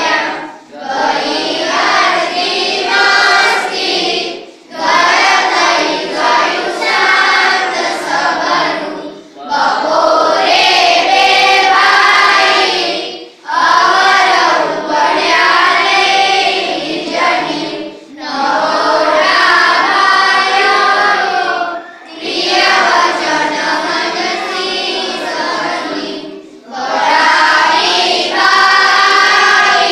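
A class of schoolchildren singing together unaccompanied, boys and girls in unison. The song goes in phrases of about four seconds with a brief pause for breath between each.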